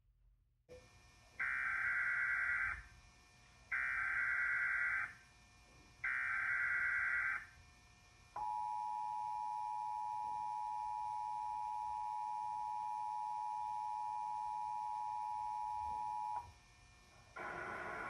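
Emergency Alert System test: three short bursts of the SAME digital header data tone, followed by the EAS two-tone attention signal, 853 Hz and 960 Hz sounded together, held steady for about eight seconds and cutting off sharply. A hiss starts near the end.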